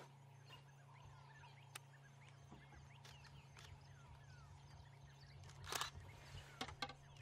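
Faint outdoor bush ambience: distant birds chirping here and there over a low steady hum. Near the end comes a brief rustling burst, then a few sharp clicks.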